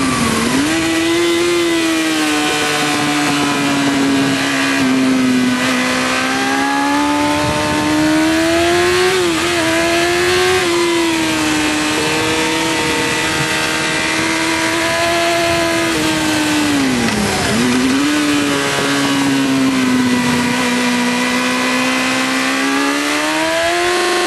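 Yamaha YZF-R6 600 cc inline-four engine at high revs on a track lap, recorded on board with wind noise. Its pitch holds high and steady for long stretches and drops sharply twice, just after the start and about two-thirds of the way in, as the rider slows and changes down for a corner, then climbs back under acceleration.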